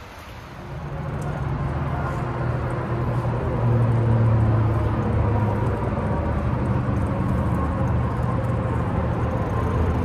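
Steady low rumble of wind and tyre noise on a handheld phone's microphone while cycling, swelling about a second in and then holding.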